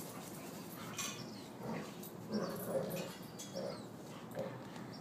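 Two dogs play-fighting and making several short vocal noises as they wrestle.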